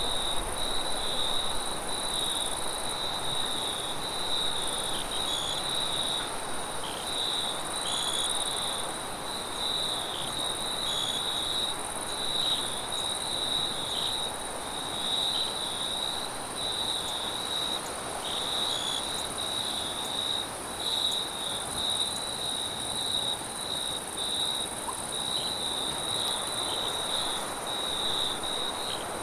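Crickets chirping in a continuous, pulsing chorus, with a fainter, higher insect trill above it, over a steady rush of wind.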